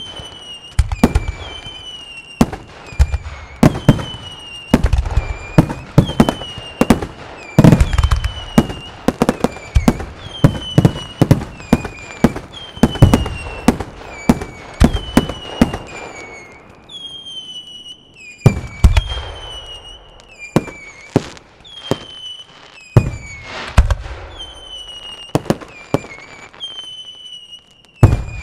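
Fireworks display heard from about 140 m: aerial shells bursting in quick, dense volleys of sharp bangs, thinning after a brief lull about two-thirds through, with one big bang near the end. A high falling whistle repeats about every second and a half behind the bangs.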